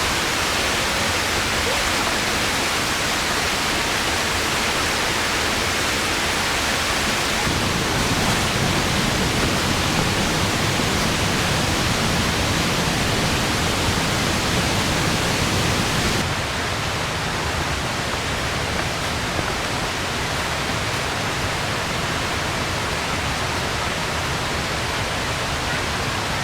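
Mountain stream rushing and splashing down a narrow gorge over small falls, a steady loud rush of water. Its tone changes abruptly about seven seconds in and again about sixteen seconds in.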